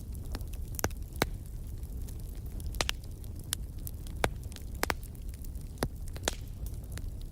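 Wood fire crackling: a steady low rumble of burning with sharp pops and snaps at irregular intervals, some louder than the rest.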